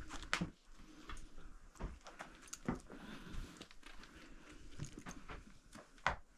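Scattered knocks, scrapes and scuffs of feet clambering over rock on a cave floor, irregular and faint.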